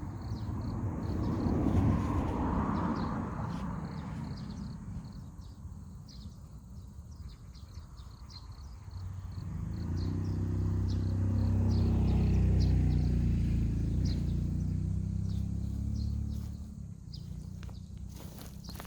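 Insects chirping steadily while vehicles pass. The first passes as a rushing swell about two seconds in. The second is a motor vehicle whose steady engine hum grows, holds and fades between about nine and sixteen seconds in.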